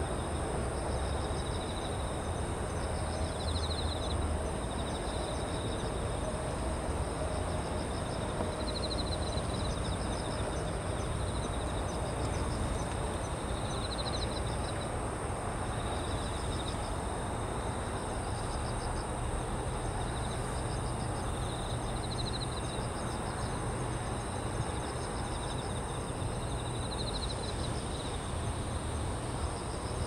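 Night chorus of autumn crickets including bell crickets (suzumushi). A ringing trill of about a second recurs every five seconds or so over steady high trilling from other insects, with a constant hum of distant city traffic beneath.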